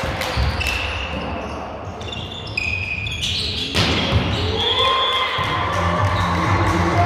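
Indoor volleyball court sounds: ball hits and short high squeaks on the court floor. Arena music with a steady bass beat comes in about four seconds in.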